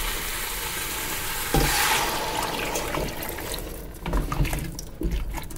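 Water being poured into a pot of sautéing potatoes and pumpkin, the hot pan hissing as the water goes in. The hiss swells about one and a half seconds in and fades after about three and a half seconds, followed by a few light knocks.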